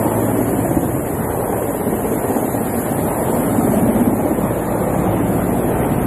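Wind buffeting the microphone: a loud, steady rushing noise, with a faint low hum underneath.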